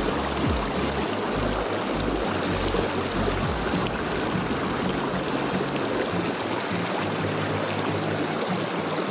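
Mountain stream rushing over rocks in a shallow riffle close by, a steady noisy wash of water, with quiet background music underneath.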